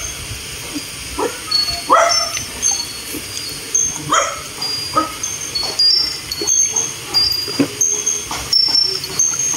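A dog whining and yelping in short rising calls, the loudest near the start and about two and four seconds in, with fainter ones between. Scattered clicks and faint high chirps run underneath.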